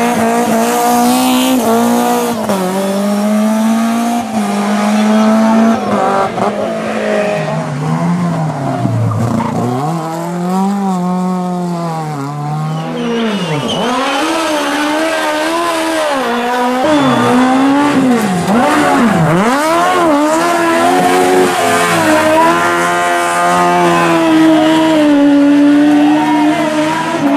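A rally car's engine revving hard, its pitch climbing and dropping back again and again, with tyres squealing as the car slides.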